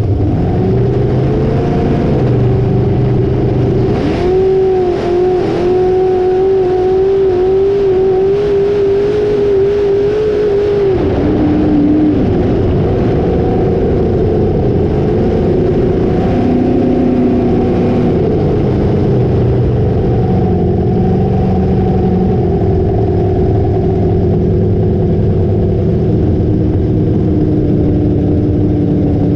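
Hallett long-deck flat-bottom jet boat's engine running under way. It holds a steady high pitch for several seconds, drops off sharply about eleven seconds in, then rises and falls with the throttle.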